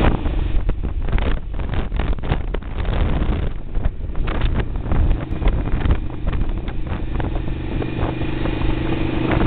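Wind buffeting the microphone of a handheld camera on a moving motorcycle, over the bike's engine and road rumble, with irregular knocks from the camera being handled. A steady engine hum comes through more clearly from about six seconds in.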